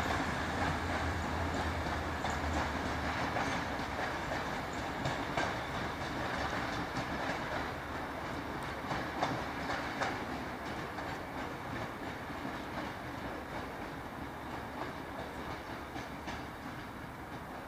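Diesel-hauled passenger train pulling away: the locomotive's low engine hum fades out in the first few seconds while the coaches roll past, their wheels clicking over rail joints and points, and the whole sound slowly grows fainter.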